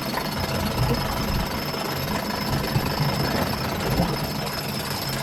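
Sailboat winch being cranked under load to hoist a person in a bosun's chair: a steady mechanical rattle.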